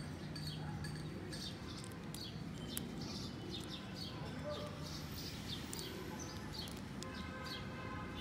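Small birds chirping in the background, a busy run of short high calls that each fall in pitch, over a steady low murmur. A single sharp click comes about three seconds in.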